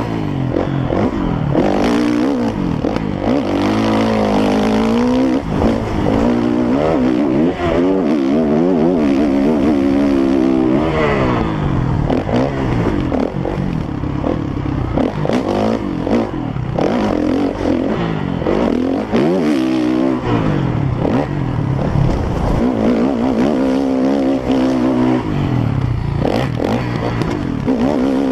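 Dirt bike engine revving up and down over and over as the rider rolls the throttle on and off along a bumpy dirt trail, with short knocks and rattles from the bike over the rough ground.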